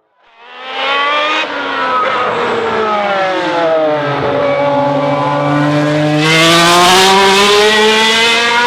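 Le Mans racing car engine fading in, its revs dropping away for a few seconds, then climbing steadily in pitch as it accelerates and grows louder as it comes close.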